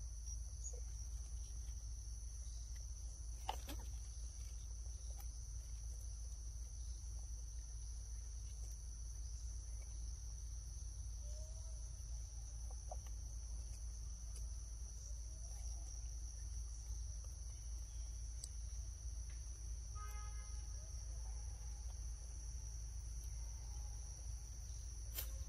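Outdoor ambience: a steady high-pitched drone of insects with a low rumble underneath, and a brief bird call about twenty seconds in.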